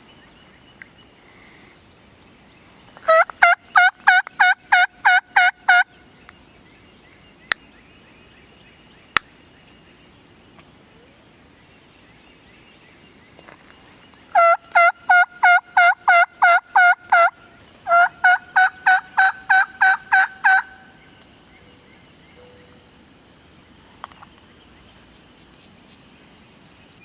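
Turkey call worked by a hunter, three runs of rapid yelps, about four notes a second, to get a gobbler to answer. Two sharp clicks fall between the first and second runs.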